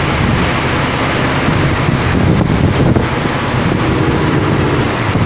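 Scania P310 truck's diesel engine running under way, heard inside the cab as a steady low drone over road and wind noise.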